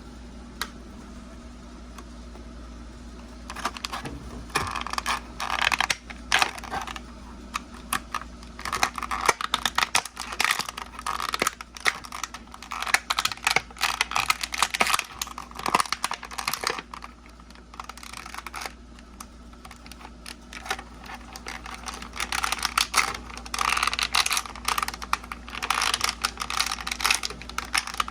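Plastic packaging being handled and opened: a busy patter of small clicks and taps with bursts of crinkling, quieter for a few seconds near the start and again in the middle.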